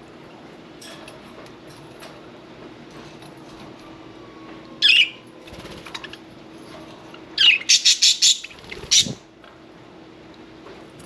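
Budgerigar flapping its wings in short flurries: one brief burst about five seconds in, then a quick run of beats around seven to eight seconds and one more near nine seconds.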